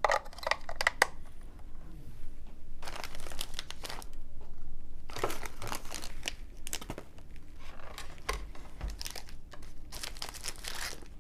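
Plastic packaging crinkling and tearing in several short spells while batteries are handled and fitted.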